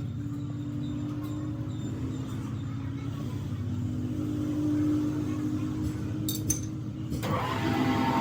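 Engine or motor running steadily, a low pulsing rumble with a steady hum, and a single sharp click about six and a half seconds in.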